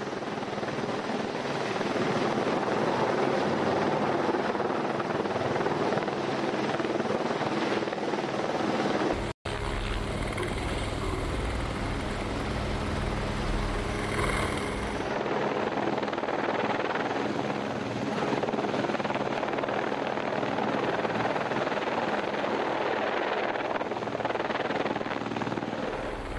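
Helicopter hovering with a work cage slung beneath it on a long line, its rotor and engine running steadily. The sound cuts out for an instant about nine seconds in.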